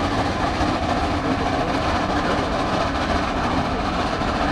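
Two geared steam locomotives working hard, their exhausts a steady, continuous chuffing.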